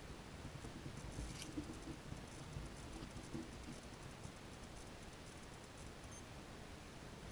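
Faint scratching and pattering of loose dry soil as a black-tailed prairie dog digs at its burrow entrance and kicks dirt back. There are a few sharper ticks and scrapes in the first few seconds, then it eases off.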